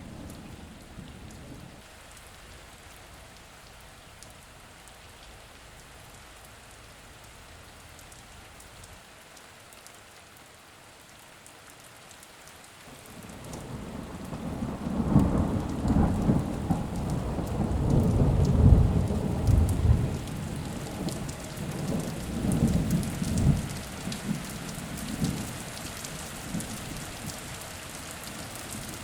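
Steady rain falling, with a long roll of thunder that builds about halfway through, rumbles in waves for several seconds, and then dies away toward the end.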